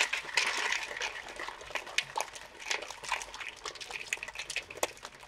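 Hot coffee being poured from a glass carafe onto ice in a glass mason jar: a steady pour with many small clicks and crackles through it.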